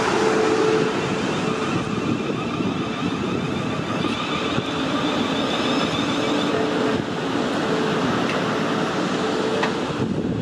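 South Western Railway Class 450 Desiro electric multiple unit moving along the platform close by. Steady rumble of wheels on rail with a faint whine from its electric drive.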